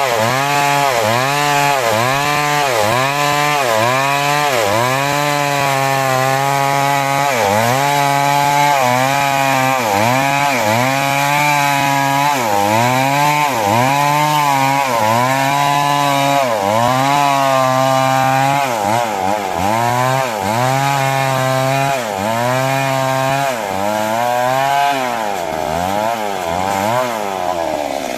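Stihl MS 382 two-stroke chainsaw cutting through wood under load. The engine speed sags and recovers about once a second as the bar is worked through the cut, and it revs up high near the end.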